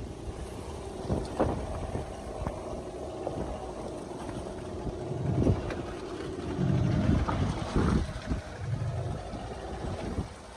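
A fishing boat's engine running with a steady hum, with wind buffeting the microphone in gusts about halfway through.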